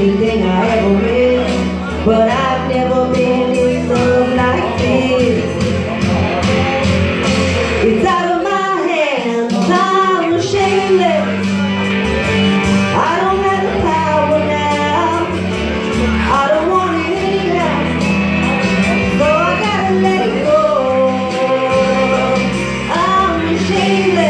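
A live band playing a song, with a singer over keyboard and guitar. The low accompaniment drops away for a moment about eight seconds in while the vocal line carries on.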